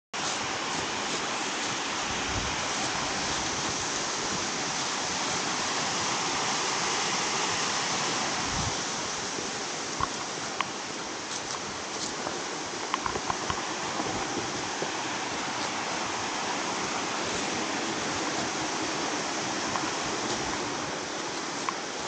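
Steady rush of a waterfall and mountain stream, a little quieter from about ten seconds in, with a few faint ticks over it.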